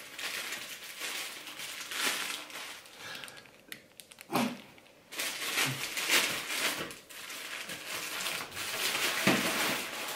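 Plastic snack packaging crinkling as a bag of rice cakes is opened and a rice cake is pulled out, in irregular rustles with a quieter pause partway through.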